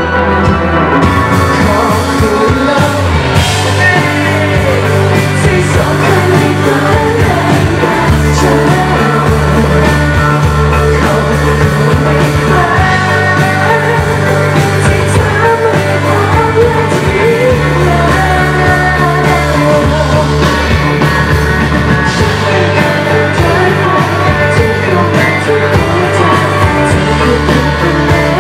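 Live rock band playing, with a woman singing over electric guitars and drums.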